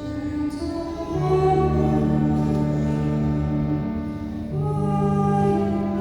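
Slow hymn with sung voice over sustained instrumental chords; the held notes change about a second in and again near four and a half seconds.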